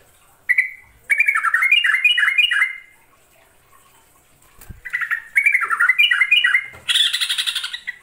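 Yellow-vented bulbul singing: a single note, then two bubbly phrases of quick rising-and-falling notes with a pause between them. Near the end comes a harsh chatter that runs into fast repeated notes.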